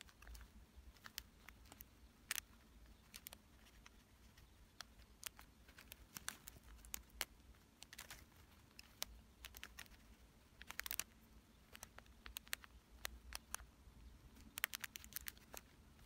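Faint, irregular scratching and ticking of a very dry Chinese painting brush making short strokes on the painting.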